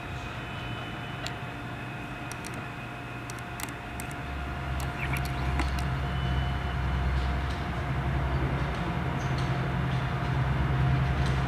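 A diesel work-train locomotive approaching through a subway tunnel. Its engine rumble grows steadily louder from about four seconds in, with scattered sharp clicks and squeaks of steel wheels on curved rail.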